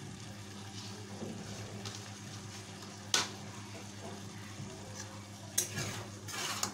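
Masala curry simmering and sizzling gently in a nonstick kadai. A spatula knocks once against the pan a few seconds in, then scrapes through the curry near the end.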